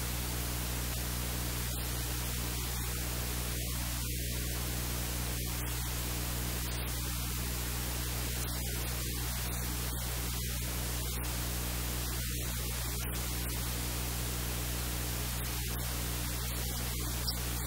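Steady hiss of static with a low electrical hum beneath it.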